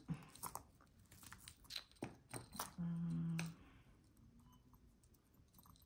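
Small clicks and rustling of costume jewelry and its bag being handled and sorted through. About three seconds in comes a short, steady hummed 'mmm' from a voice.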